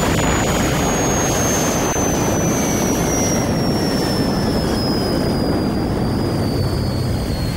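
Jet-powered car's engine roaring steadily, with a high turbine whine that slowly falls in pitch.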